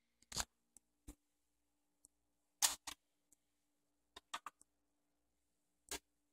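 A dozen or so short, sharp clicks and taps at irregular intervals, a tight cluster of them a little past four seconds in, over a faint steady hum.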